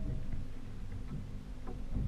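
Outboard motor running steadily at trolling speed, a low drone with water noise from the hull and wake.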